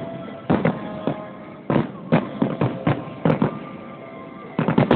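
Aerial fireworks shells bursting during a finale: a string of sharp booms every half-second or so, a brief lull about three and a half seconds in, then a rapid barrage of bangs near the end.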